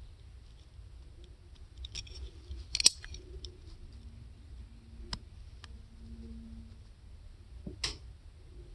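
Metal tweezers picking at skin close to the microphone: faint handling rustle with a few sharp clicks, the loudest about three seconds in and another near the end.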